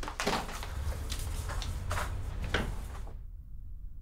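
A handful of sharp knocks and clatters, about five in three seconds, as things on a table are knocked about, over a low steady hum. About three seconds in, everything but the hum cuts off abruptly.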